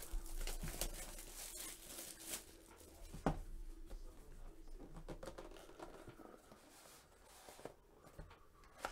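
Plastic shrink-wrap torn and crinkled off a Panini Absolute football hobby box, loudest for the first two seconds or so. Then quieter rustling of the cardboard box being handled and slid open, with a sharp tap about three seconds in and another near the end.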